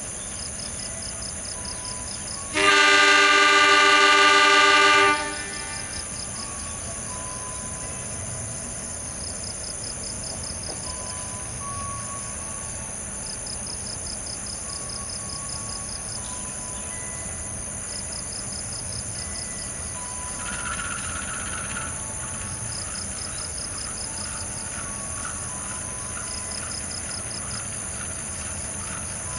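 Diesel locomotive horn sounding one long, loud, steady blast of about two and a half seconds, a little over two seconds in. Under it runs steady rhythmic chirping of insects.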